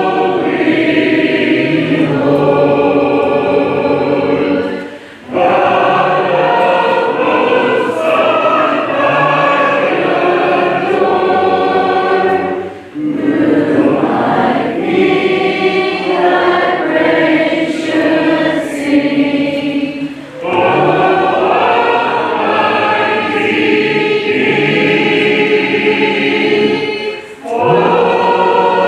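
A church congregation singing a hymn together without instruments, many voices in sustained phrases with brief pauses for breath between lines.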